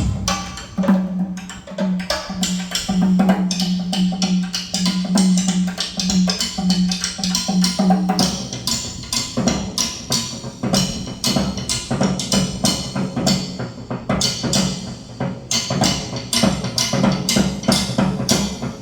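Recorded drum music played over hi-fi loudspeakers: dense, rapid drum and percussion strikes, with a pulsing low drum tone under them for about the first eight seconds.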